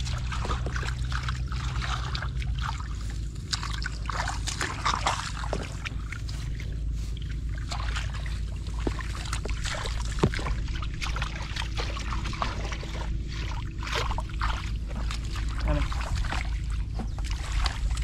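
Hands sloshing and splashing through shallow muddy water as they grope in the mud for fish: many small irregular splashes and trickles over a steady low rumble.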